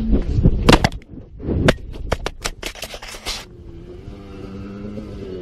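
A dirt bike crashing: the engine note drops away, then about ten sharp knocks and scrapes in quick succession as the bike and its mounted camera hit and tumble along the ground. A quieter steady low hum follows for the last couple of seconds.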